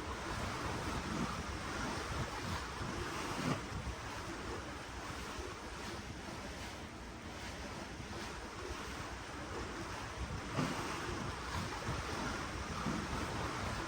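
Ocean water washing and rushing below a cruise ship, with wind buffeting the microphone in low rumbling gusts.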